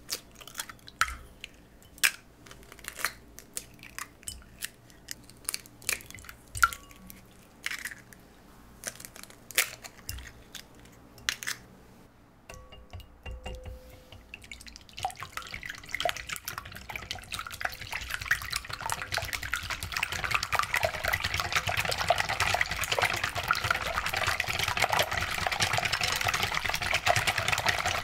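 Eggs being cracked against and into a glass mixing bowl, a run of sharp taps and drips. About twelve seconds in it gives way to a whisk beating the eggs in the glass bowl, a fast continuous clatter and swish that grows louder.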